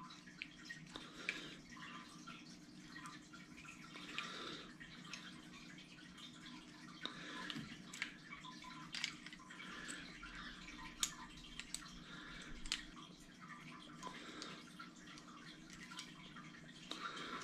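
Faint, scattered small clicks and taps from a GoPro camera and its mounting screw being handled while a safety cord is attached to the camera, over a low steady room hum.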